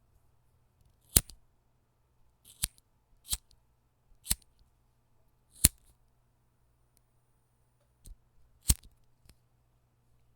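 Lighter being clicked repeatedly: six sharp clicks at irregular intervals, with a couple of fainter clicks near the end.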